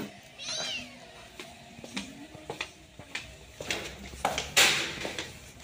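A cat meows once, a short high call bending in pitch, about half a second in. Light clicks and knocks from the soft pet carrier being handled follow, with a short burst of noise near the end.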